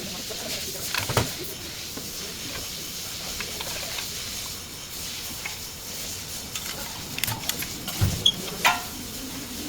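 A few short, sharp knocks and clicks over a steady hiss.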